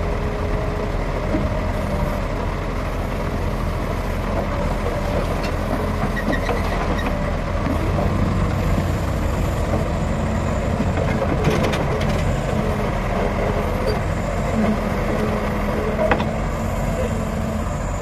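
Backhoe loader's diesel engine running steadily as it digs soil with its rear hydraulic arm and bucket. A few sharp knocks about two-thirds of the way through and again near the end.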